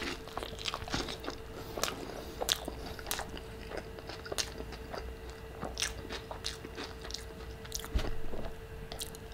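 Close-miked chewing of a soft fish taco (tilapia with melted cheese and sour cream in a tortilla): irregular wet mouth clicks and smacks over a faint steady hum.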